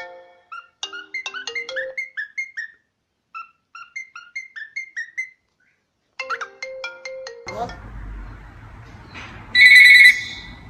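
A marimba-style phone ringtone plays in short repeated phrases of quick falling notes, stops for about a second and starts again. About seven and a half seconds in, a room recording begins, and near the end a loud, shrill tone sounds for under a second.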